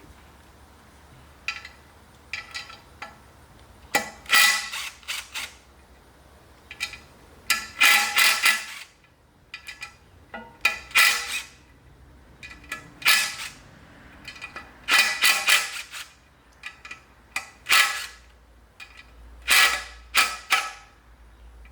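Impact wrench hammering in short bursts, about eight times, loosening the assembly bolts of a three-piece BBS RS wheel.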